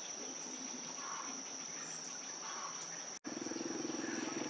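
Steady high-pitched insect chirring, likely crickets, with faint murmurs under it. The sound cuts out for an instant about three seconds in, and a low, rapidly pulsing drone then joins the chirring.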